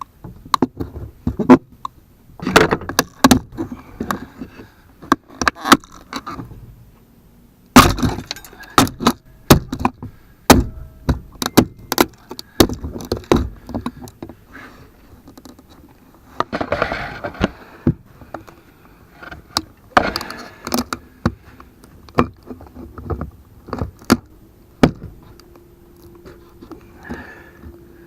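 Steel pry bar clanking and scraping against a stuck seatbelt anchor bolt in a van, a run of irregular sharp metal knocks as the bolt, which only spins, is levered to break it out. The loudest knock comes about eight seconds in, with longer scraping stretches later.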